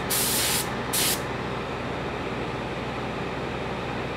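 Gravity-feed paint spray gun hissing in two short trigger bursts as acrylic paint is misted on, stopping about a second in. A heat gun drying the paint runs on steadily underneath.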